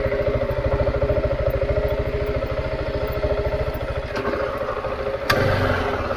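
Husqvarna 701's single-cylinder engine running at low revs with a fast, even pulse. About five seconds in there is a sharp knock, and the engine gets louder after it.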